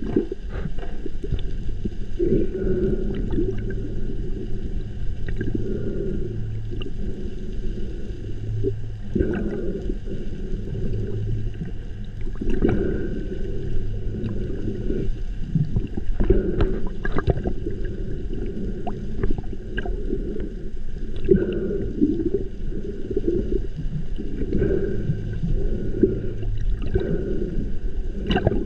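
Muffled underwater noise picked up by a camera submerged in open water: a murky gurgling rush that swells every few seconds, with a low hum that comes and goes and scattered sharp clicks and taps.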